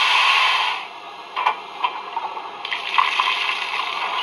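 Steam-locomotive sound effects from a model locomotive's DCC sound decoder playing through its small speakers while the engine stands still. A steady steam hiss cuts away about a second in, giving way to a few short clicks and knocks, and the hiss builds back near the end.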